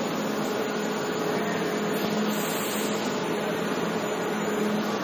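Steady hum of brickworks machinery: an even mechanical noise with a constant low tone and its overtone, unchanging throughout.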